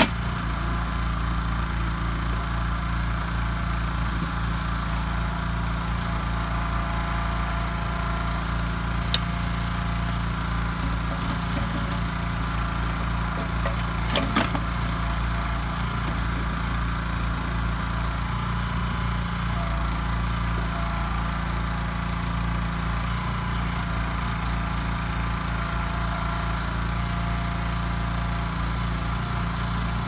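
Engine of a Kellfri ATV backhoe running steadily, powering the hydraulic digging arm as it scoops soil out of a pit. Two short knocks stand out, about nine seconds in and near the middle.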